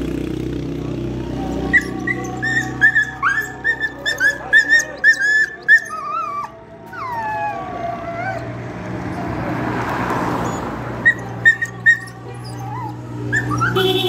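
Dog whimpering: a quick run of short, high whines, then a few long falling whines, and more short whines later on.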